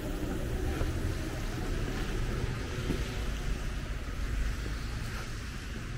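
Steady hiss of heavy rain and traffic on a wet road, under a low rumble of wind buffeting the microphone.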